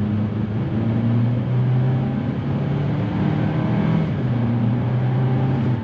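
A 2021 Hyundai Venue's 1.6-litre four-cylinder engine pulling under way, heard from inside the cabin over road noise. Its note shifts in pitch about two seconds in and drops again near four seconds as gears are selected in the automatic's manual mode.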